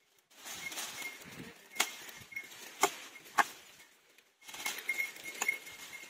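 A few sharp clicks and knocks over an uneven rustling noise, with no chainsaw running.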